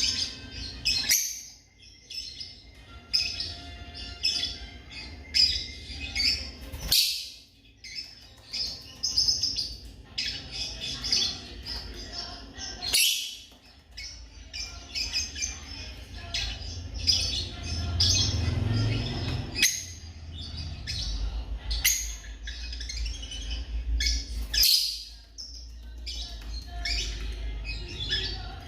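African lovebirds chirping over and over in short, high chirps, with a low rumble underneath in the second half.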